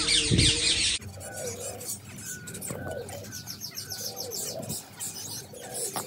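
Finches chirping in a group: fast high twittering with short repeated notes, and lower curved calls coming about once a second.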